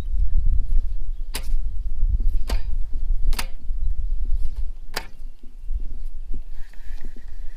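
Four sharp finger snaps, about a second apart, over a steady low rumble.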